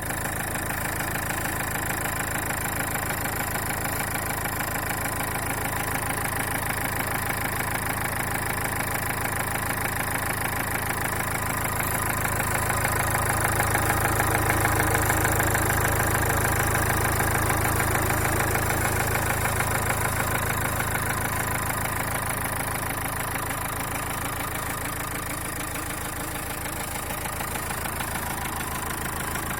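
Renault K9K 1.5 dCi four-cylinder diesel engine idling steadily with a rapid, even knock from a faulty fuel injector, a little louder midway.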